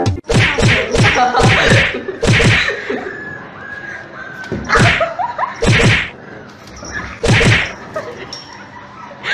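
A kitten and a puppy in a standoff: a run of short, sharp, hissing bursts at irregular intervals, with a faint wavering whine near the middle.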